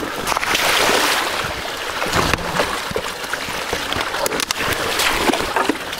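Fat-tyre bike riding through the shallow water of a river channel: continuous splashing and rushing water, with a few sharp knocks along the way.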